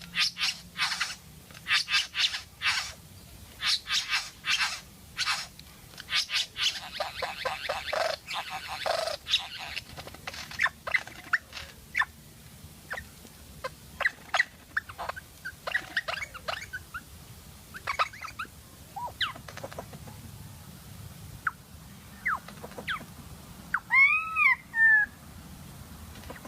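A bird calling. It gives runs of harsh, rapidly repeated calls that speed into a trill around eight seconds in, then scattered short whistled chirps, with a louder, clearly pitched call near the end.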